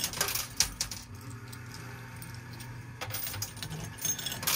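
Metal coins clinking and dropping in an arcade coin pusher machine, in clusters near the start and again in the last second and a half, with a quieter stretch between. A low steady hum runs underneath.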